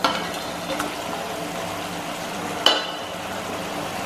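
Fish curry bubbling in a pan with a steady hiss as fried stinging catfish are slid in from a steel plate: a clatter at the start and a sharp metal clink about two and a half seconds in.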